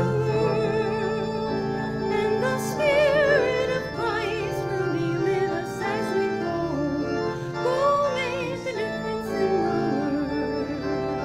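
Church organ playing a hymn, with a singer carrying the melody over it in a voice with strong vibrato: the closing hymn at the end of Mass.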